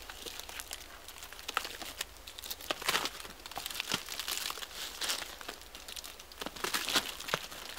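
Dry pine bark being pried and torn off a dead standing trunk by hand: irregular cracking and crackling, with louder tearing about three, five and seven seconds in.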